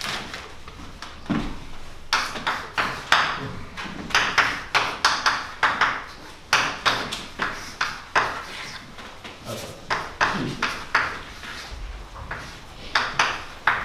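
Chalk writing on a blackboard: quick runs of taps and scratches as the chalk strokes across the slate, starting about two seconds in.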